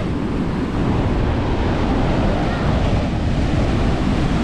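Heavy storm surf breaking and washing up the beach in a continuous rush, with strong wind buffeting the microphone.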